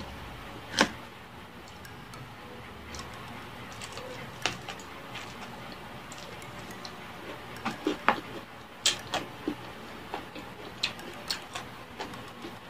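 Close-miked eating of crispy Jollibee Chickenjoy fried chicken: the crust crunching and crackling in scattered sharp bites and chews, the loudest about a second in and a close run of them around eight to nine seconds in.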